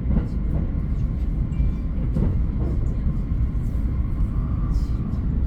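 Train running on rails: a steady, loud low rumble with a few short knocks.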